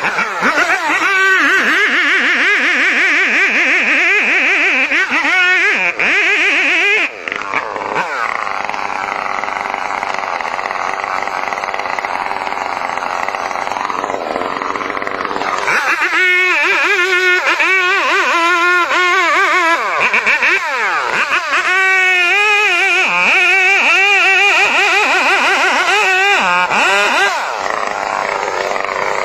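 Chainsaw engine running loud, its pitch repeatedly rising and falling as it is revved, with a steadier stretch around a third of the way through.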